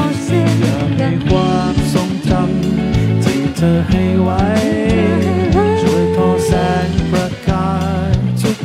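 Live pop band playing a song: a woman singing over electric bass, electric guitar and drums.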